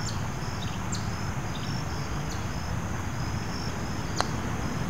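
Outdoor ambience: a steady low rumble under short, high chirps that repeat throughout, with one sharp click about four seconds in.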